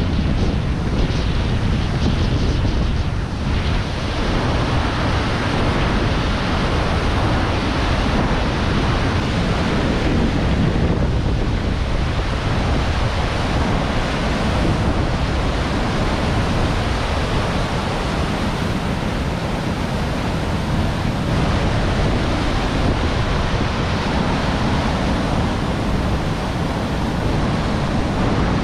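Steady roar of rushing water from a mountain waterfall and its fast snowmelt creek, with wind buffeting the microphone.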